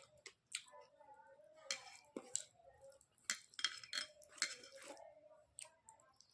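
Close-up eating sounds: wet chewing, lip smacks and short mouth clicks as a person eats soft rice and mashed chokha, with several louder smacks in the middle.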